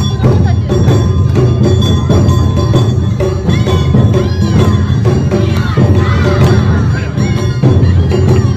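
Awa Odori festival band playing: heavy taiko drumming with clanging kane hand gongs and melody lines over a continuous beat, with crowd voices around it.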